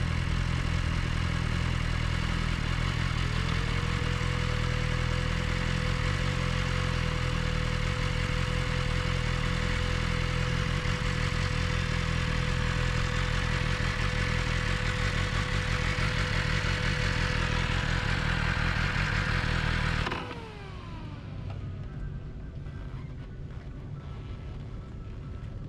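BMW S1000RR inline-four motorcycle ridden at a steady speed: engine and wind noise with a steady whine. About 20 seconds in the throttle closes, the sound drops sharply, and the pitch falls away as the bike slows.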